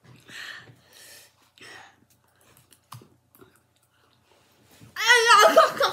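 A boy eating snow: three short breathy huffs through the mouth and a few faint clicks, then near the end a loud voice cry whose pitch wavers up and down.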